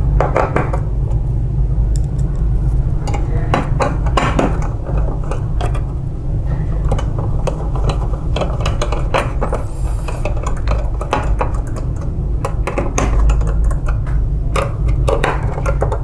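Irregular light clicks and metallic clinks of hands fitting parts onto a photocopier drum unit's metal frame, over a steady low hum.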